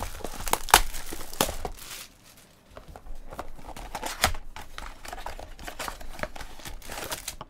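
Plastic wrapping and foil trading-card packs crinkling and tearing as a card box is opened and its packs pulled out. There are sharp crackles for the first two seconds, a brief lull, then softer rustling.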